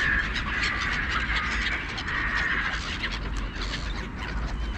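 A flock of gulls calling excitedly over thrown food in a dense, overlapping chorus. There are long drawn cries in the first half and many short calls after; the din is close enough to pass for an anti-bird sound device.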